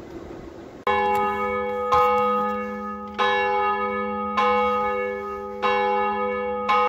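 Large church bell tolling: six strokes about a second apart, each ringing on over a steady low hum, starting about a second in and cutting off abruptly after the last stroke.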